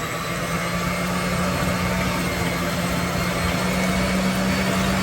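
Electric kitchen mixer running steadily at one speed, a constant motor hum and whirr as it mixes a pie filling.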